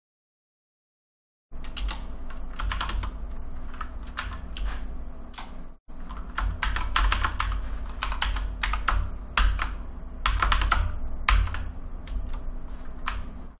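Typing on a computer keyboard: quick, irregular key clicks in flurries, starting about a second and a half in, over a steady low hum.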